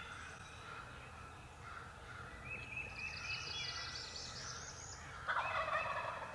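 A wild turkey tom gobbles once, a rapid rattling call starting about five seconds in. Before it, songbirds sing repeated trilling phrases.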